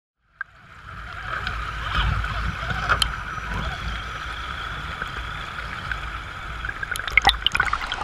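Creek water rushing and gurgling over rocks, heard up close at the surface, fading in about half a second in. A few sharp clicks near the end.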